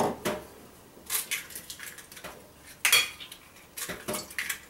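Eggs being cracked into a blender jar: a series of sharp taps and clinks of eggshell against the jar, the loudest about three seconds in.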